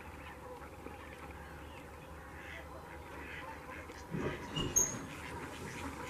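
A large flock of wildfowl calling: a steady distant chorus of duck-like calls, with louder, lower calls breaking in about four seconds in.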